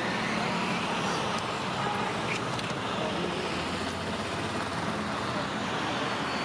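Steady roadside traffic noise: a continuous wash of passing vehicles on the road.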